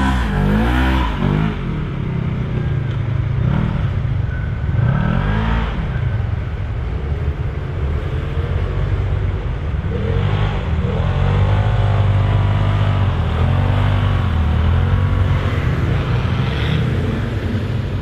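LS6 V8 swapped into a Nissan Patrol, running continuously and blipped and revved several times, its pitch rising and falling in swells.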